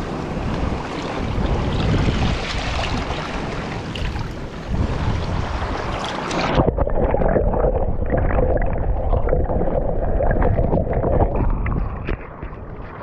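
Wind buffeting the microphone over sea water washing and gurgling against shoreline rocks. About halfway through, the sound turns suddenly muffled, with small knocks and clicks.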